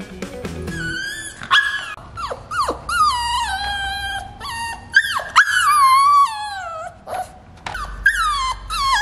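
Australian Shepherd puppy crying in its crate: a string of long, high-pitched whines that slide down in pitch, broken by short sharp yelps. The owners put the crying down to him missing his littermates.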